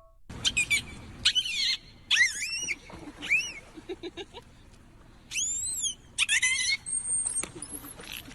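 A small animal giving a series of high-pitched chirps and squeaks, some as rapid trills and some as single calls that rise and fall in pitch.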